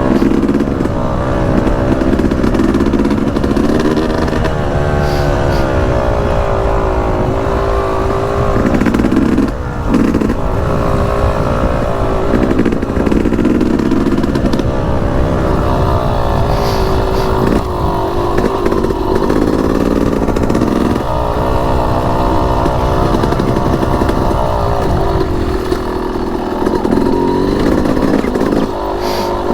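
Yamaha YZ250X single-cylinder two-stroke dirt bike engine running under constant throttle changes on a rough trail, its pitch rising and falling every second or two as the rider blips and rolls off, with a brief clatter about ten seconds in.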